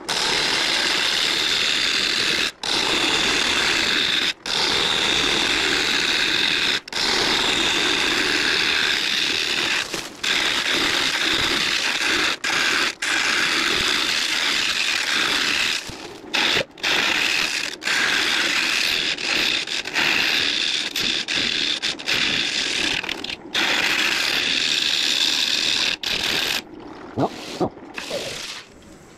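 Turning tool cutting the inside of a large pine bowl spinning on a wood lathe: a loud, continuous rasping hiss of shavings peeling off. It breaks every few seconds for a moment as the tool lifts off the wood, and stops near the end.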